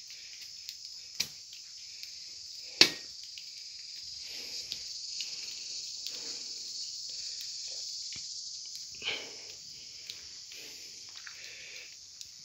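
A steady, high insect chorus from the vegetation at the cave mouth, with soft scuffs of footsteps on loose rock. Two sharp knocks stand out, about one and three seconds in; the second is the loudest sound.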